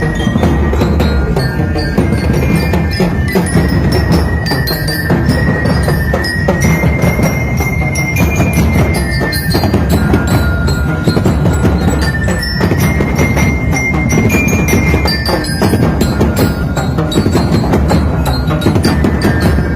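Ati-atihan street band playing: dense, continuous drumming with a bell-like melody of held notes on top, likely bell lyres.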